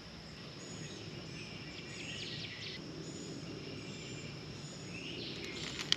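Outdoor ambience: a steady background hiss with a few short bird chirps and a steady high-pitched insect-like whine, and a single sharp click near the end.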